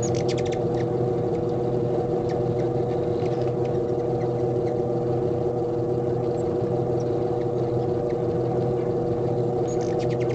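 A steady hum made of several held tones runs throughout. A short burst of rapid, high chittering comes about a second in and again near the end: the chase calls of hummingbirds fighting over a feeder.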